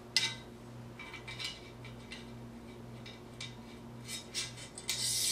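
Small metal clicks and clinks as hardware is handled against an aluminum swift arm. About five seconds in comes a steady scraping as the small metal handle-mounting plate is slid into the arm's channel.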